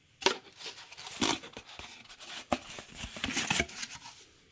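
Packaging rustling and crinkling as a boxed CPU cooler is handled and unpacked, with a few sharp knocks scattered through.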